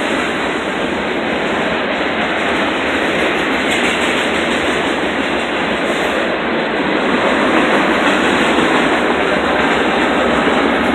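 Double-stack intermodal freight cars rolling past close by: steady noise of steel wheels on the rails, growing slightly louder toward the end.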